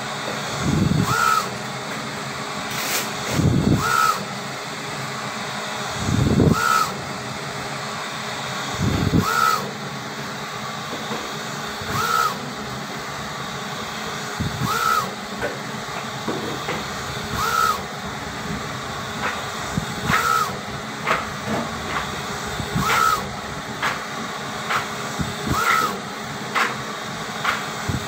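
UV flatbed printer running with a steady hiss. A short chirp and click comes about every two and a half to three seconds as the print carriage makes each pass. In the first nine seconds each pass also brings a low thud.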